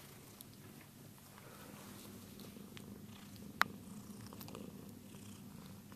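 Domestic cat purring steadily, close up. A single sharp click about three and a half seconds in.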